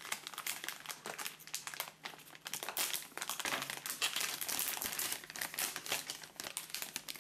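Metallised anti-static plastic bag crinkling and rustling as it is handled and opened by hand, with a short lull about two seconds in.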